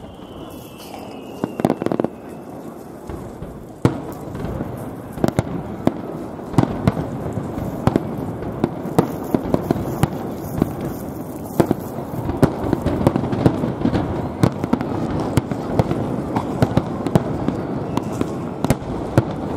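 Fireworks display: aerial shells bursting in a rapid series of bangs over dense crackling. The barrage grows louder and thicker from about four seconds in.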